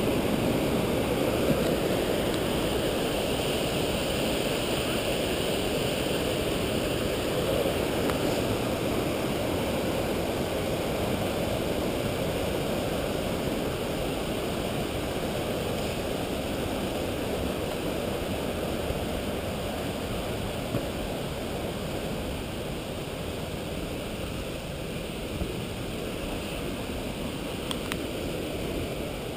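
Whitewater mountain stream rushing over boulders, a steady roar of water that slowly grows fainter toward the end.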